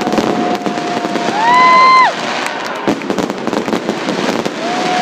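Fireworks display: dense crackling and popping of firework bursts. Over it run steady whistling tones, with a louder, higher whistle about a second and a half in and another starting near the end.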